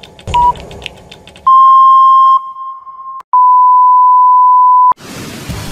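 Broadcast countdown leader: a short beep with ticking about half a second in, then a loud steady line-up test tone over colour bars, broken briefly near the middle, that cuts off suddenly.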